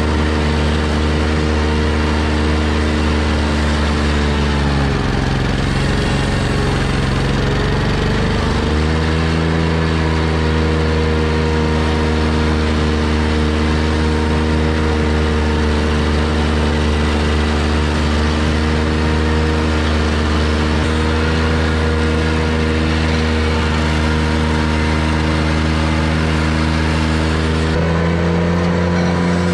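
Ventrac 4500Z's Kubota gas engine running steadily while the Tough Cut deck mows tall grass and brush. About five seconds in, the engine note drops and turns rough for a few seconds, then picks back up; it shifts pitch again near the end.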